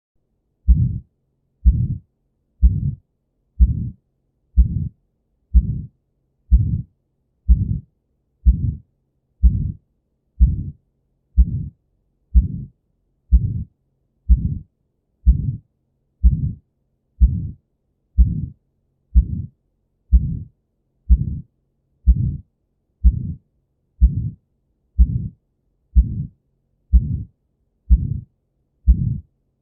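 Heartbeat heard through a stethoscope, about one beat a second and very regular, each beat carrying the harsh systolic ejection murmur of aortic stenosis.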